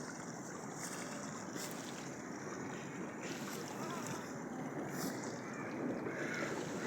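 Steady rushing background noise, with a few faint chirps near the end.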